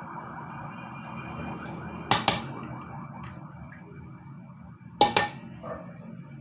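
A metal tablespoon clinks against a stainless steel mixing bowl twice, about three seconds apart, each a quick double clink as a spoonful of ketchup is tipped in. Underneath is a steady background hum with a faint high steady tone.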